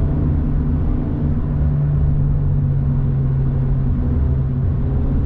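Honda Civic Type R FK8's turbocharged 2.0-litre four-cylinder engine running at a steady part-throttle cruise, heard from inside the cabin over tyre and road rumble. Its pitch sags slightly through the middle and rises again near the end.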